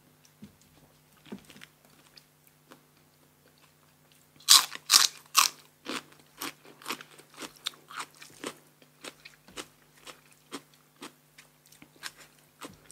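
A person eating crunchy food close to the microphone: a few faint chewing clicks, then about four and a half seconds in three loud crunching bites, followed by steady crunchy chewing at about two chews a second. A faint steady hum lies underneath.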